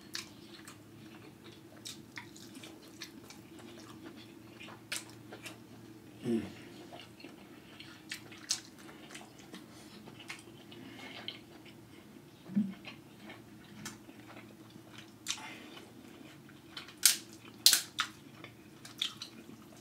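Close-miked eating: soft chewing and mouth sounds with scattered sharp clicks. A few louder cracks come near the end as a king crab leg shell is pulled apart. A steady low hum runs underneath.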